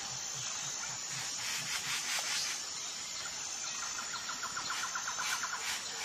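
Outdoor nature ambience: a steady hiss with a faint high thin tone. From about four seconds in, a rapid trill of about a dozen clicks a second lasts roughly a second and a half, from a calling bird or insect.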